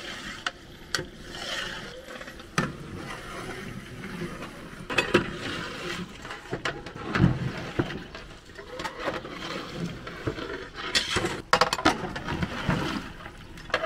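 Irregular clattering knocks and clicks, a cluster of quick strikes about eleven seconds in, over a steady background hiss.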